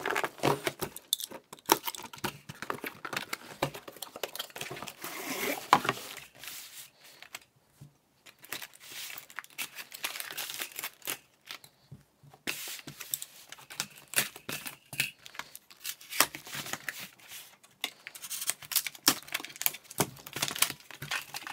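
Cardboard blaster box being opened by hand: packing tape cut and torn, and the cardboard flaps and taped insert rustling, crinkling and clicking in irregular bursts, with a few short pauses.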